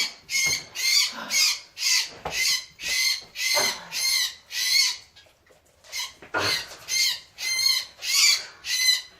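A small garden bird, just caught by a cat and now held in the hand, giving repeated shrill distress calls at about two a second. The calls break off for about a second past halfway, then carry on.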